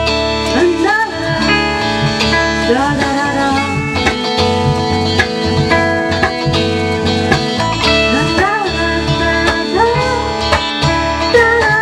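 Band music: guitars playing over bass and drums, with a melody line that bends up and down in pitch.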